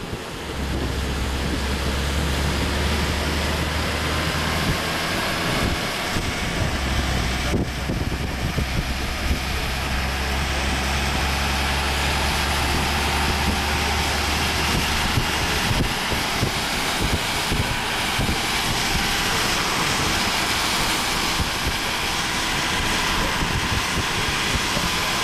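Strong wind rushing over the microphone, with a steady low hum under it that drops out about fifteen seconds in.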